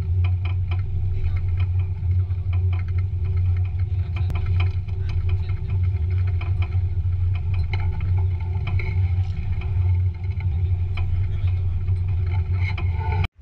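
A boat's engine running steadily under way: an even, low drone, with scattered light clicks and knocks over it.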